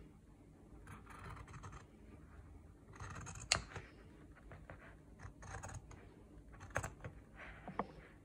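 Pinking shears cutting through woven tartan fabric in a series of quiet snipping strokes, with a sharp click of the blades about three and a half seconds in.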